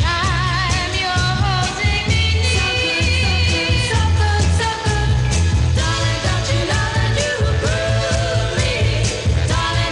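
A 1960s female vocal group singing a soul-pop record, with held notes and a strong, steady bass beat underneath.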